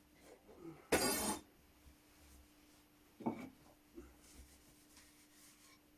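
Small objects handled on a wooden workbench: a short scraping rasp about a second in, then a light clink that rings briefly a little after three seconds, with a few faint knocks.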